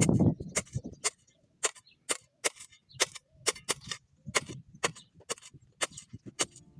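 Grass being trimmed by hand: a quick, regular series of sharp cutting strokes, about three or four a second.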